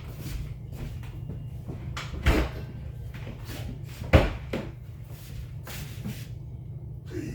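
Knocks and bumps from a large refrigerator being shoved into a tight space, with a sharp knock about two seconds in and the loudest about four seconds in, over a steady low hum.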